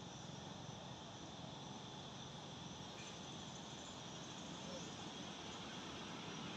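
Steady, faint insect chorus of crickets or cicadas, a continuous high-pitched drone with no breaks, over a low steady rumble.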